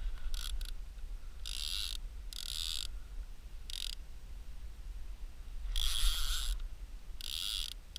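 Conventional trolling reel being cranked by hand, its gears whirring in short bursts of about half a second, six times or so, as line is wound in.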